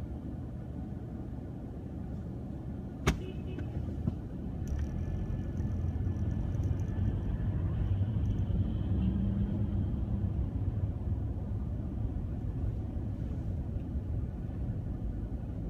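Low rumble of engine and road noise heard inside a moving car. It grows louder about five seconds in as the car pulls away and picks up speed. There is one sharp click about three seconds in.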